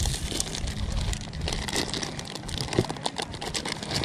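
Clear plastic bag crinkling and crackling in irregular clicks as hands grip and turn a frozen chum block inside it. A low rumble under it fades out about two seconds in.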